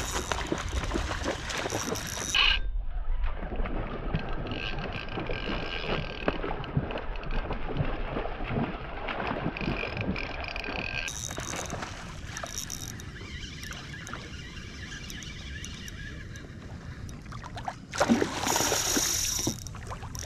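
Water lapping and sloshing against a kayak hull, with wind on the microphone. Near the end comes a louder rush of noise lasting about a second and a half.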